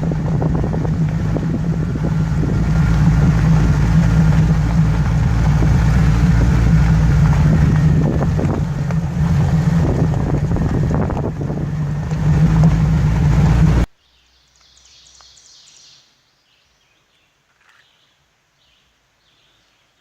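Jeep Wrangler driving: a steady engine drone mixed with road and wind noise. It cuts off suddenly about fourteen seconds in, leaving faint chirping.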